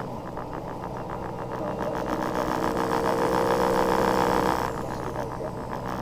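Vehicle engine and road noise with a fast, even rhythmic pulsing that grows louder, then drops off suddenly near the end.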